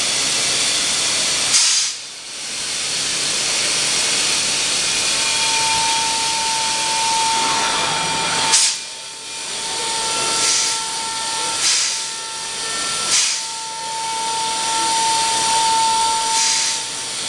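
PADE Sincro five-axis CNC machining center running: a steady rushing hiss, with a high steady whine that starts about five seconds in and cuts in and out. About six short, sharp hisses of air stand out along the way.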